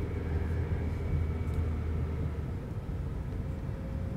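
Car engine and road noise inside a moving car's cabin: a steady low hum that eases a little about halfway through.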